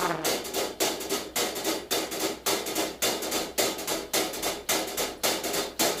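A percussion break in the backing recording: dry, sharp knocking hits in a steady beat of about two to three a second. There is no trumpet and no singing.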